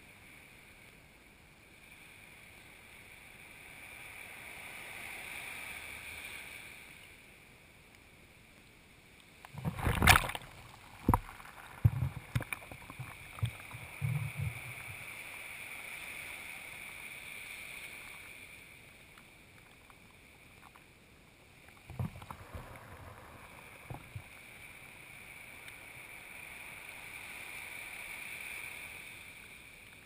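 Small waves washing up the sand and draining back, three slow swells of hiss. A cluster of sharp knocks and splashes about ten seconds in, the loudest sounds, and a smaller cluster a little past twenty seconds, as the wash reaches the camera.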